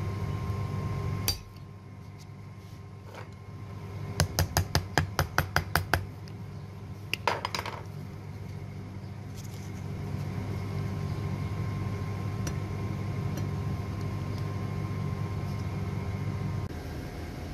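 A quick run of about a dozen sharp metallic clinks, roughly six a second, then a brief rattle, from pliers working a thin metal sleeve wrapped around a car battery terminal post. A steady low hum stops about a second in and returns partway through.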